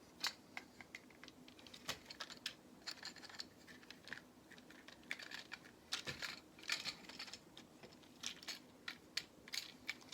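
Plastic Lego pieces clicking and rattling as they are handled and pressed together, an irregular run of small sharp clicks.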